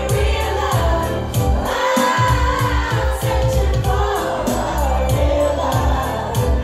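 Women singing together into handheld microphones over loud amplified music with a heavy, pulsing bass beat; the bass drops out briefly about two seconds in.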